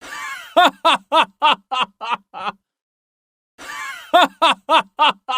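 A person laughing in a rhythmic "ha-ha-ha", about three to four pulses a second that fade toward the end of each burst. The laugh comes twice, with about a second of silence between the two bursts.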